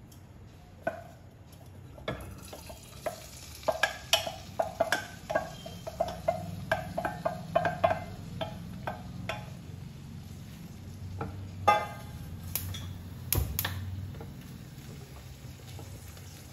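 Wooden spoon knocking and scraping boiled corn kernels out of a steel pot into a kadai of hot olive oil. A quick run of clinks, each with a short metallic ring, comes between about four and nine seconds in, then a couple of louder knocks, with the corn sizzling in the oil underneath.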